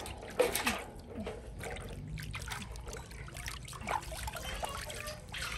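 Water splashing and trickling in a large metal basin as a baby monkey paddles through it and a cupped hand lets water pour back in, in small irregular splashes.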